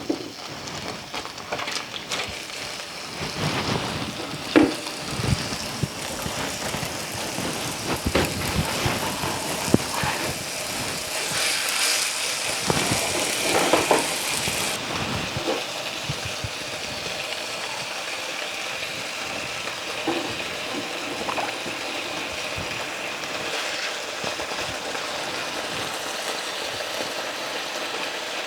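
Pork chops sizzling as they brown in hot oil in a skillet, a steady hiss with a few knocks of handling in the first half. The sizzling grows louder for a few seconds around the middle.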